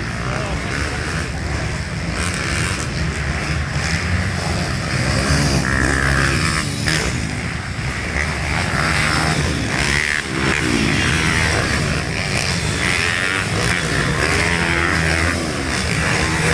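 Pit bikes with 150 cc single-cylinder four-stroke engines racing on a dirt track, their engines revving up and falling back several times over a continuous loud drone.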